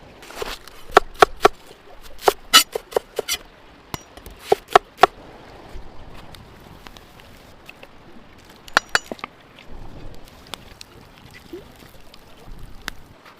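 Sharp metal clanks of a cooking utensil striking a pan, each with a brief ringing tone, coming in clusters over a steady low hiss.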